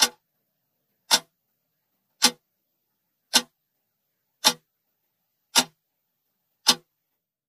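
Countdown timer sound effect: a sharp clock tick about once a second, seven ticks in all, with dead silence between them.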